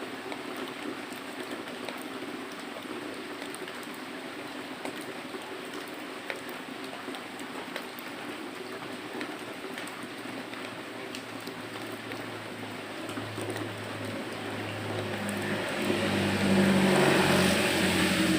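Steady rain with scattered drop ticks. In the last third a low rumble swells and grows louder, becoming the loudest sound near the end.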